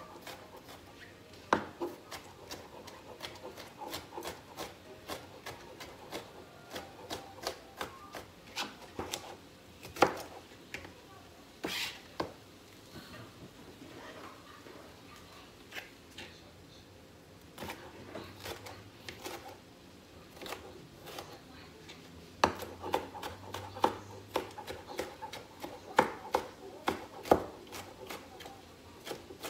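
Chef's knife dicing bell peppers on a thin plastic cutting mat: quick, irregular taps of the blade striking the board, with a quieter pause a little under halfway through.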